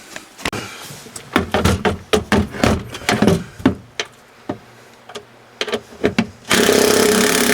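Irregular clicks and knocks from a tool working the 10 mm screws and fasteners that hold a truck's center console. About six and a half seconds in, a loud steady whirring noise starts and lasts about a second and a half.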